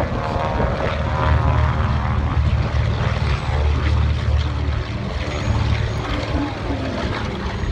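Piston-engined propeller aircraft running: a steady, loud low drone with a stack of engine tones that is strongest in the first few seconds.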